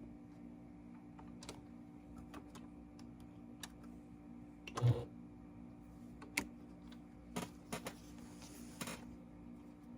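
Scattered light clicks and knocks from handling a hoodie and its zipper at a sewing machine, with one louder thump about five seconds in, over a steady low hum.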